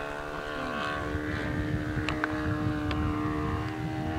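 Glow-fuel engine of a radio-controlled Super Chipmunk 45 model plane in flight, buzzing at a steady pitch, with a few faint clicks about two seconds in.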